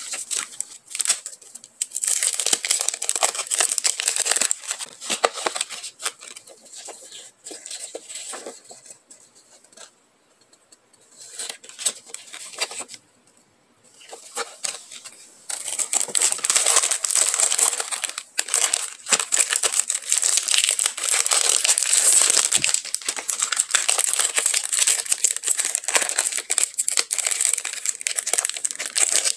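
Clear plastic packaging crinkling as hands handle and unwrap stationery items in their cellophane sleeves. It comes in bursts with two brief lulls about a third of the way in, then goes on as steady, continuous crinkling through the second half.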